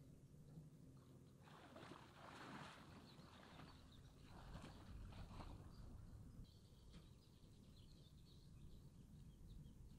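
Near silence: faint outdoor ambience with a few small bird chirps, a soft rushing noise for a few seconds in the middle, and a faint low hum that fades out about four seconds in.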